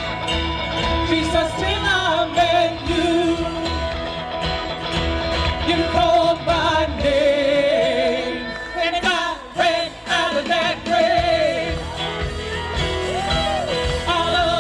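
Live worship band playing a song, with a singer's voice carrying the melody over the band.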